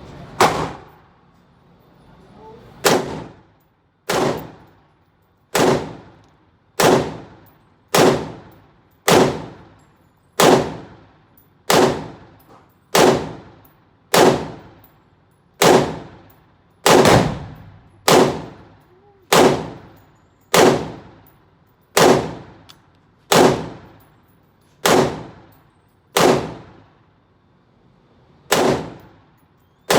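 A steady series of about twenty single gunshots, roughly one every second and a bit, each sharp crack followed by a short echoing tail.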